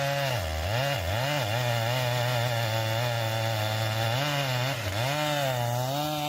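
Chainsaw running and cutting wood, its engine note steady with brief dips in pitch a few times.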